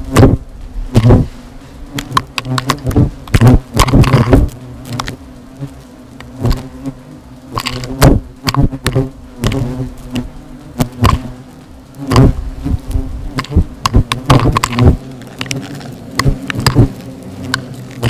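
European hornets buzzing close by in flight around their freshly disturbed nest, a steady low drone, with many sharp knocks and taps close to the microphone.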